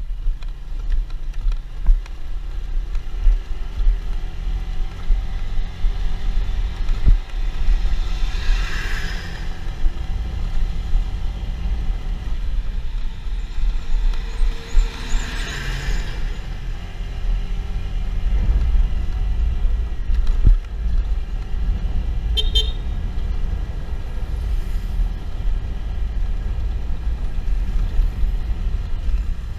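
Riding on a motorcycle on the road: a steady low rumble of engine and wind, with vehicle horn toots now and then, including a short beep about two-thirds of the way through.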